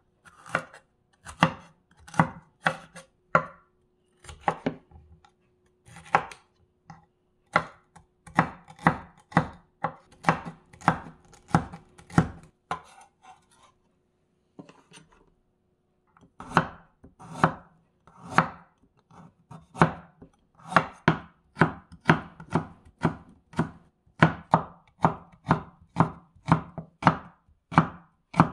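Kitchen knife chopping on a wooden cutting board: a broad cleaver-style knife slicing red bell pepper and cutting carrot into thin strips. The knife strikes come in a steady run of about two a second, with a pause of about two seconds just past the middle.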